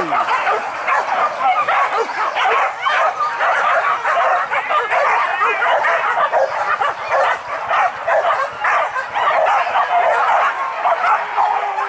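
A pack of hunting dogs yelping and barking without pause, many voices overlapping into one continuous din.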